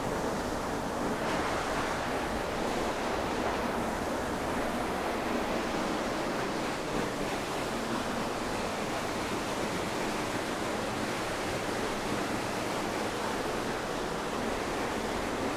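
Steady rush of a small waterfall pouring into a rocky stream pool.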